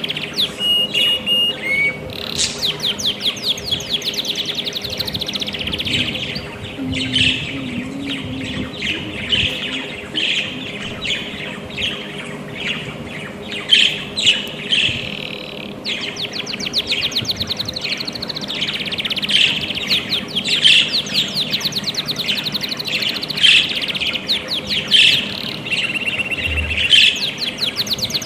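Budgerigars chirping and chattering in a rapid, continuous stream of high chirps with a few short whistles, over a faint steady hum.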